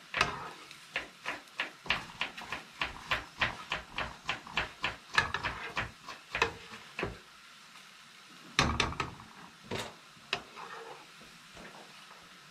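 A metal spoon tapping and clattering against a non-stick frying pan while a thin crepe is loosened and turned. There are about three quick taps a second at first, then a louder knock past the middle and a couple of lighter ones after it.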